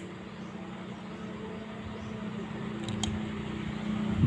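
A steady low motor hum that slowly grows louder, with a faint click about three seconds in.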